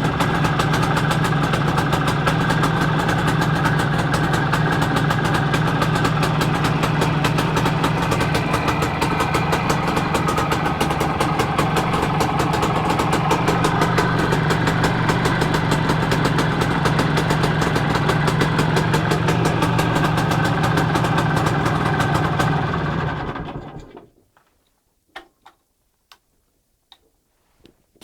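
Freshly repaired Izh Planeta 4 motorcycle's single-cylinder two-stroke engine idling steadily, then shut off about 23 seconds in and dying away within a second or so. A few faint clicks follow in the quiet.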